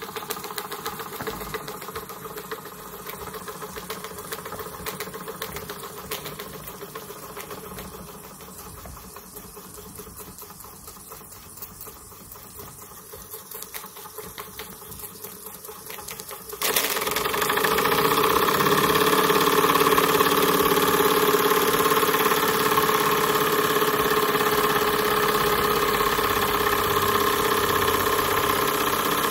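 Model double-acting slide-valve steam mill engine running, a fast steady mechanical clatter from its piston, crosshead and valve gear as the flywheel belt-drives a small dynamo. A little over halfway through the sound turns abruptly much louder and fuller.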